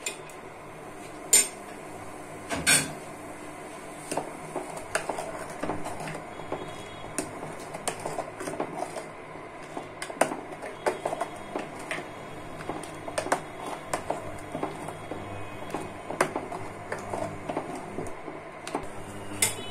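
Plastic spoon stirring sugar into heating milk in a stainless steel saucepan, with irregular light clinks and scrapes against the pan. There are two sharper knocks in the first three seconds.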